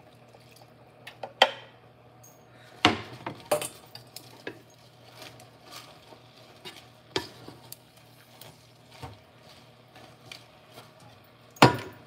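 Cookware being handled: a spatula scraping meat juice out of a frying pan into a pot and stirring spinach, with sharp knocks and clinks of utensil and pans at irregular intervals, the loudest about a second and a half in and just before the end.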